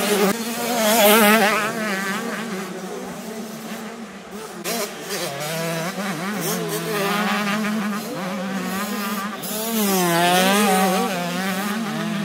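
Several 85cc two-stroke motocross bikes racing past, their high buzzing engines revving up and down as the riders work the throttle and shift. The engine sound is loudest about a second in and again near ten seconds.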